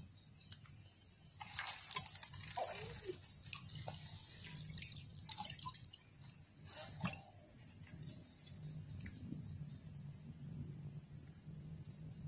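Small splashes and drips of water around a bamboo lift net in shallow floodwater, in scattered clusters about a second and a half in and again around five to seven seconds, over a steady chirring of insects.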